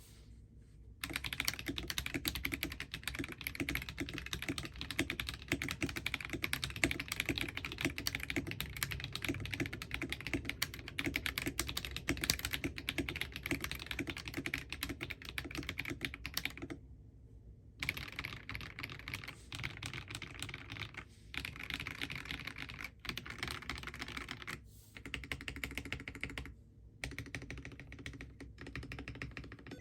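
Fast, continuous typing on a mechanical keyboard fitted with NicePBT Peaches n Cream Lite PBT keycaps. The typing starts about a second in and breaks off briefly twice, near the middle and again later.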